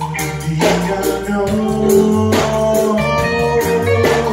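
Music with guitar and a percussion hit about every second and three quarters.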